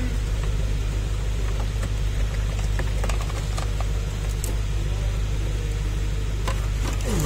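Steady low rumble of workshop background noise, with a few light clicks and knocks as a wiring harness and plastic dashboard trim are handled. A short falling tone sounds near the end.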